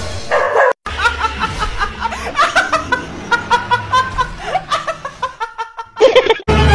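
A young woman laughing hard in rapid, breathy bursts. Near the end comes a brief, loud burst of sound.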